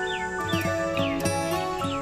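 Background music: a slow melody of held notes, the pitch stepping to a new note about every half second.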